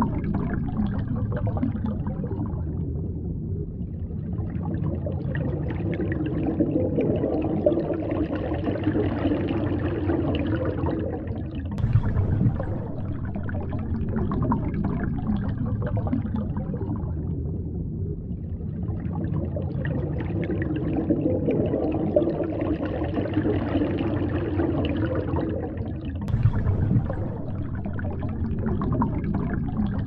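Underwater ambience sound effect: a continuous low rush of water with gurgles, swelling and fading in a repeating cycle of about fourteen seconds, with a brief louder surge about twelve seconds in and again near the end.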